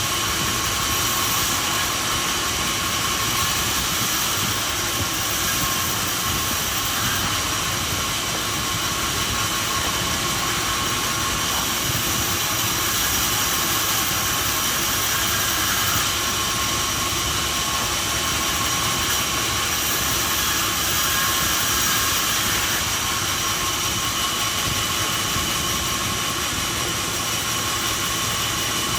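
Sawmill machinery running steadily: a continuous loud hiss with a few steady whining tones over it, unchanging throughout.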